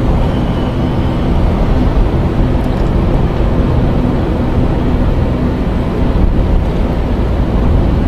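Car interior noise while driving: a steady engine hum and road noise heard from inside the cabin.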